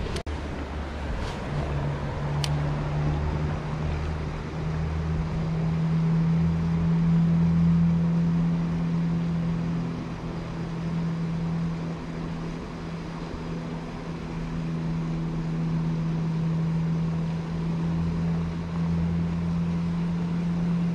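An engine running steadily, a constant low hum that holds without change, with one sharp click early on.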